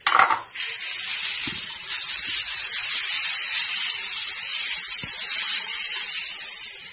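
Grated beetroot, carrot and peas frying in oil in a non-stick pan as they are stirred with a wooden spatula, with spice powder just added. After a brief knock at the start, a loud, steady sizzling hiss begins about half a second in.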